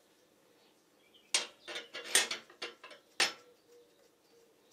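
Metal parts of a 50cc scooter engine clicking and knocking as the cylinder and head are handled by hand: a quick run of about eight sharp clicks and clinks over two seconds, starting about a second in.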